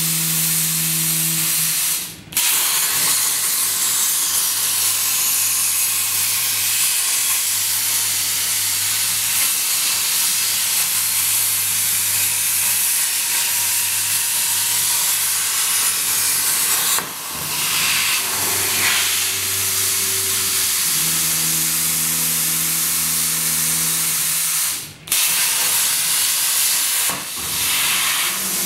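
CNC plasma cutting torch hissing steadily as its arc cuts steel plate, with a low hum underneath. The hiss cuts out briefly about two seconds in and again a few seconds before the end.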